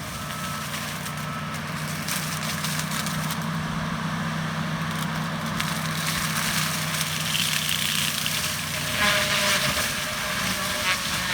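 John Deere 333G skid steer's diesel engine running steadily while its AFE SS ECO forestry disc mulcher spins and grinds wood, with crackling. Louder bursts of chipping come about seven and nine seconds in.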